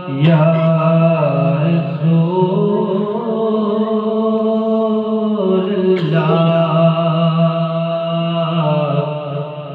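A man singing a naat unaccompanied into a handheld microphone, drawing out long held notes. He sings two long phrases with a short breath about six seconds in.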